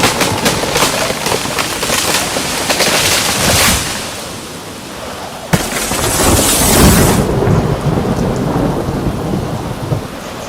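Thunderstorm: steady heavy rain with thunder, a sharp crack about five and a half seconds in followed by a loud rolling rumble, fading away near the end.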